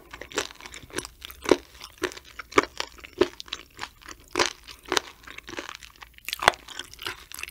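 Close-miked chewing of raw sturgeon sashimi: sharp, wet crunches come about twice a second, unevenly spaced.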